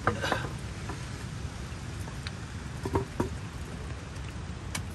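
Steady rain falling, an even hiss with scattered sharper drops or taps.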